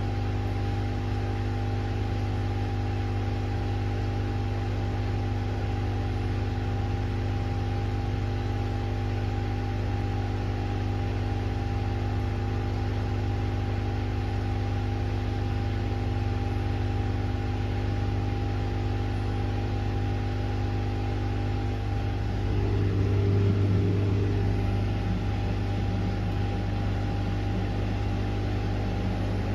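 Washing machine running mid-cycle on a 40 °C cottons wash: a steady electric hum with several steady tones over a hiss. About three-quarters of the way through, a louder low rumble swells for a few seconds, then dies down.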